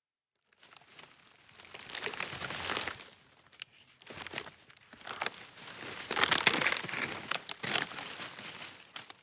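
Wood cracking and splintering as it is torn apart: a dense run of sharp snaps and crackles that starts after a brief silence and swells twice, loudest about six and a half seconds in.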